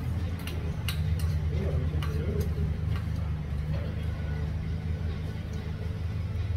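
Metal spoon and chopsticks clicking lightly against a small metal bowl while eating soup: a handful of scattered clinks over a steady low hum, with faint chatter behind.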